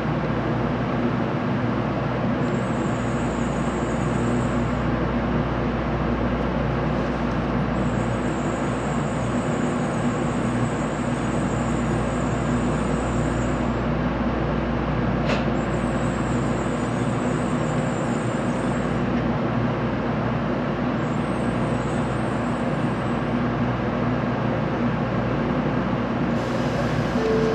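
Steady cabin hum inside a JR Central N700A Shinkansen standing at a station platform, with a faint high whine that comes and goes and a single click about fifteen seconds in.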